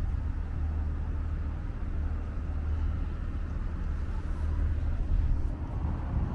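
Street traffic: a motor vehicle running close by, heard as a steady low rumble.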